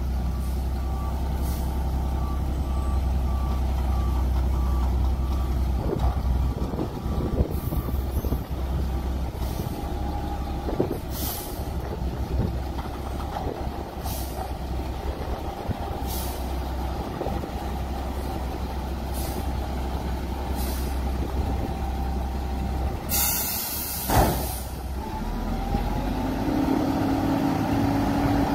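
Mack MR front-loader garbage truck's diesel engine running as it creeps up to a dumpster, its reversing beeper sounding for the first few seconds and short air hisses coming every couple of seconds. About 23 seconds in there is a loud air-brake hiss, then a hydraulic whine as the forks lift the dumpster near the end.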